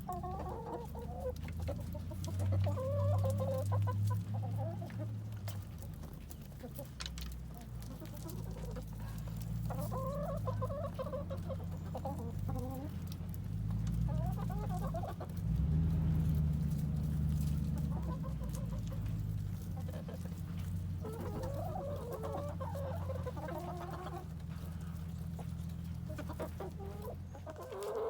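A mixed backyard flock of hens (Australorps, Barred Rocks, Rhode Island Reds and Ameraucanas) clucking in short, repeated bouts over a steady low hum.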